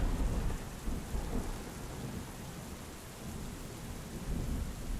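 Thunder rumbling over steady rain. The rumble is loudest at the start and dies down within about a second, leaving the even hiss of rain.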